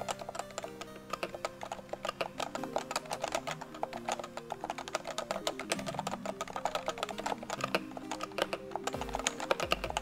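Fast typing on a Cooler Master NovaTouch TKL, its Topre-style hybrid capacitive switches under Cherry MX keycaps giving a quick, continuous stream of keystroke clacks, many per second. Quiet background music plays underneath.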